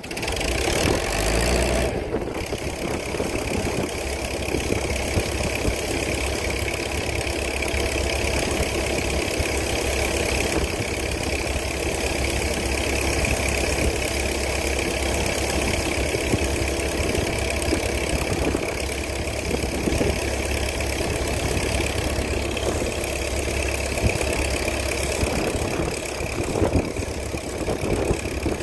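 A large engine running steadily at a constant speed.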